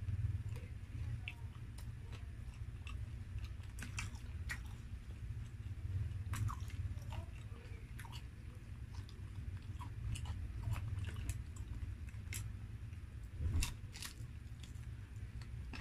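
Close-miked chewing and biting into breaded fried chicken, with wet mouth clicks and occasional crunches. A low steady hum runs underneath.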